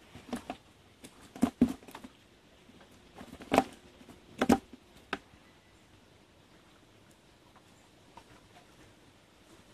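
Scattered sharp taps and knocks in about five clusters over the first five seconds, from live field shrimp and small fish being handled and sorted in plastic basins and a bucket.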